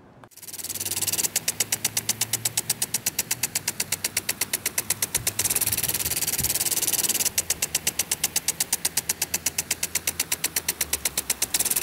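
Rapid, even mechanical ticking, about ten a second, over a loud hiss, starting abruptly just after the start. The ticking stops for about two seconds midway and again near the end, leaving only the hiss.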